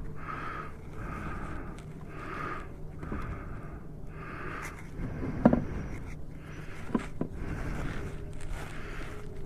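A dog panting steadily in even, repeated breaths. About halfway through there is one sharp metallic clank, and a couple of lighter clicks follow a second and a half later.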